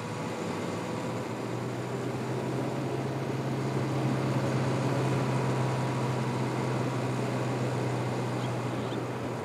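Engine of a box-body camper truck running steadily as it drives away over rough ground: a low, even drone with a noisy hiss over it.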